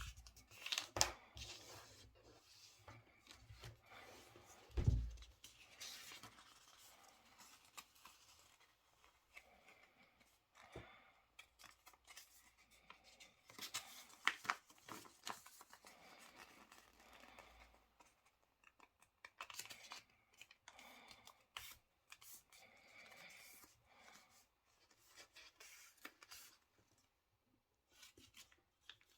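A square sheet of paper being folded and creased by hand, with scattered rustling, rubbing and crisp creasing sounds. A low thump about five seconds in.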